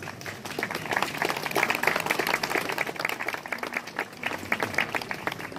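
Small crowd applauding: dense hand clapping that dies away near the end.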